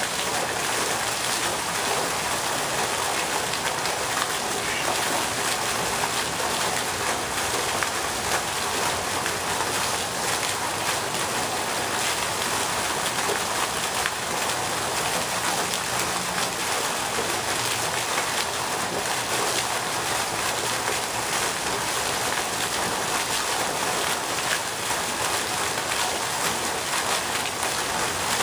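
Ornamental pond fountain: a vertical jet of water falling back onto the pond's surface, making a steady, even splashing.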